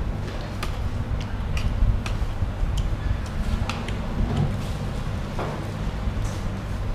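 Spoon and cutlery clinking against ceramic bowls and plates, a scattering of short sharp clicks, over a steady low rumble.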